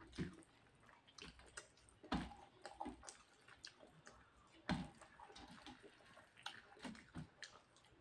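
Faint chewing and wet mouth clicks of a person eating appam with chicken gravy by hand. Two louder clicks come about two seconds in and just under five seconds in.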